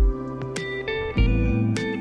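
Background instrumental music with plucked, guitar-like notes over sustained low tones.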